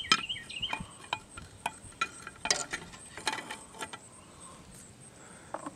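Irregular light clicks and taps of handling as an iron bracelet hung on tie wire is lowered into a glass jug of acid. The clicks thin out after about four seconds.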